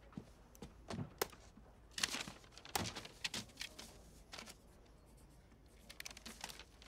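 Paper being handled: quiet, scattered rustling and crinkling with a few light taps.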